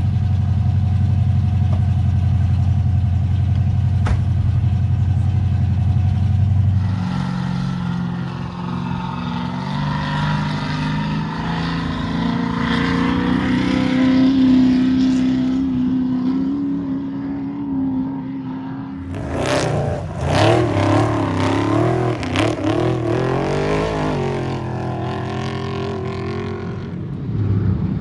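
Off-road trophy truck engines. First a steady low engine note, then from about a quarter of the way in, engines revving with rising, wavering pitch. A louder, rougher pass with rapid revving comes about two-thirds of the way through, and a steady engine note returns near the end.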